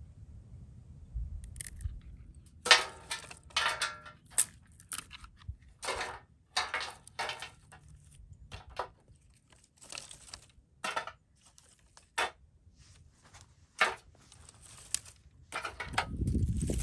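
Dry twigs and sticks crackling and rattling as they are picked up and laid on a round metal fire plate, in a run of short, sharp strokes that starts a couple of seconds in. Near the end comes a heavier, deeper rustle of branches being handled.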